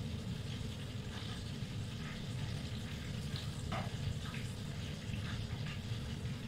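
Beef kofta meatballs frying in hot oil in a small pan, a steady bubbling sizzle, with a few brief scrapes of a metal slotted spoon in the pan as the meatballs are lifted out.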